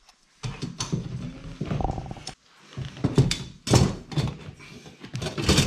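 Irregular clunks, knocks and scraping of an exhaust fan's metal support frame being worked up through a ceiling opening, with fiberglass insulation rustling around it.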